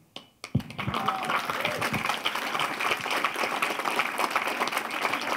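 Audience applauding at the end of a talk, a dense steady clatter of clapping that starts under a second in, after a couple of dull knocks.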